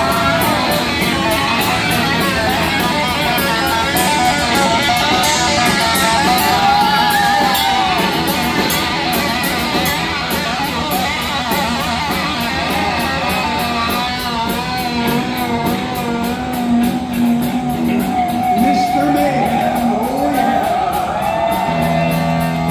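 Heavy metal band playing live, with distorted electric guitar carrying wavering, bending lead notes over the band.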